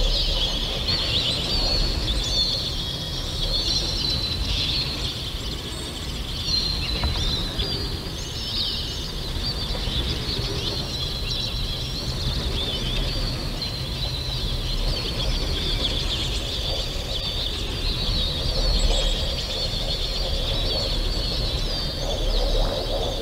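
A dense chorus of many birds chirping and chattering at once, unbroken throughout, over a steady low rumble.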